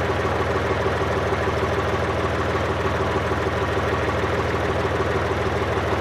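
Case farm tractor's engine running at a steady speed while its front loader lifts a pallet load of stickers on the forks.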